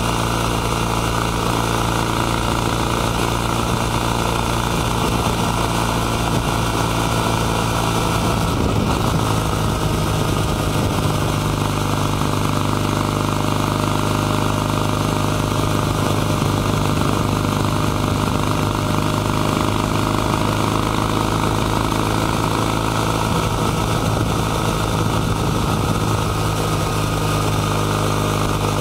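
Kawasaki W800 Cafe's air-cooled, 360-degree-crank vertical-twin engine and exhaust, heard close up while riding at a steady pace. The engine note shifts briefly about eight seconds in.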